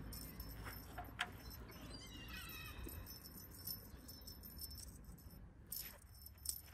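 Small bell on a feather cat wand toy jingling in short, light shakes as the toy is waved, over a low steady outdoor background hum.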